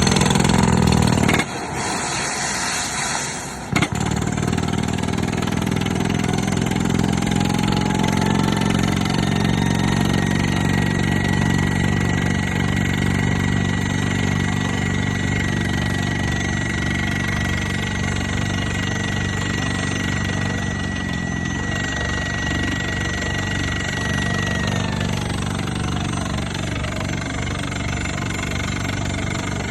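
Excavator-mounted hydraulic rock drill hammering rapidly and steadily over the excavator's engine. A short hiss comes a couple of seconds in before the drilling settles, and a thin high whine runs through the middle.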